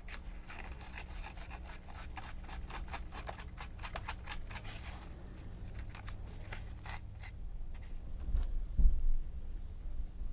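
Quick run of small clicks and scratches from hand work with small parts at a bench, thinning out after about five seconds, then a single dull thump near the end.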